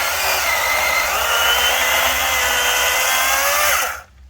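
Workforce 18-inch 80-volt battery chainsaw running and cutting wood, its electric motor whining with the chain rattling; the pitch sags a little under load, then the saw stops suddenly about four seconds in.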